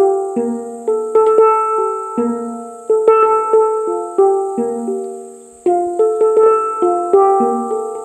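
Background music: a melody of plucked or struck notes, each ringing out and fading, in a steady rhythm of several notes a second.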